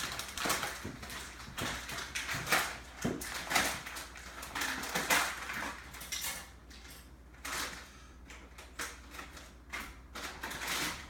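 Crinkling and rustling of plastic blind-bag packaging being handled and pulled open by hand, in irregular crackles, busiest in the first half.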